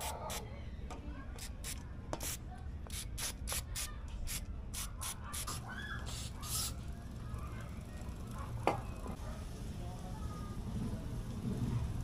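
Cleaner sprayed onto bike parts in a quick series of short bursts, over a dozen in the first seven seconds, the last a little longer. A single sharp click follows about nine seconds in.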